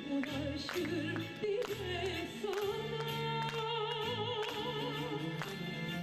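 Soprano singing a rebetiko song over instrumental accompaniment, holding one long note with a wide vibrato from about halfway in.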